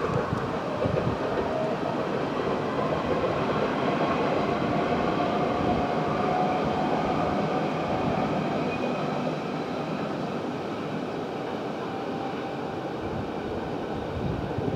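Steady rumble of a passing vehicle, building over the first few seconds and slowly fading, with faint steady high tones over it.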